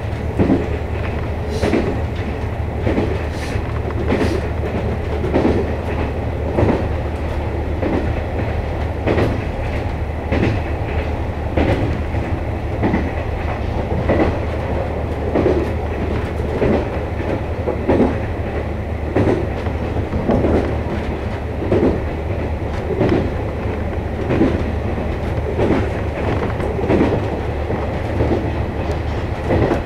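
KiHa 48-series diesel railcar running along the line, heard from inside the rear cab: its wheels knock over the rail joints about once every second and a bit, in a steady clickety-clack, over the low drone of the diesel engine.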